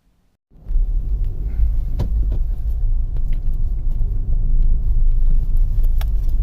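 Car on the move: a loud low rumble of engine and road noise with scattered light clicks and ticks, starting abruptly about half a second in.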